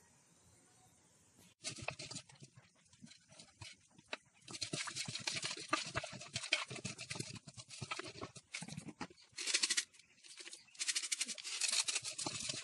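A hand mixing an oily spice paste in a steel bowl: wet squishing and scraping in quick irregular bursts, starting about a second and a half in.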